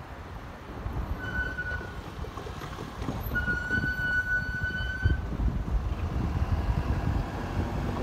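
A horn sounding twice at one steady pitch, first a short blast about a second in and then a longer one of about two seconds, over a steady low rumble and wind noise.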